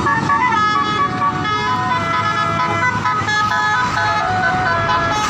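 Bus 'telolet basuri' multi-tone air horn playing a quick tune, its notes stepping up and down in pitch several times a second, over a low rumble.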